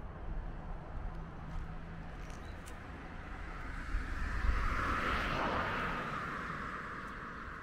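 A vehicle passing by: its noise swells to a peak a little past the middle, then fades away.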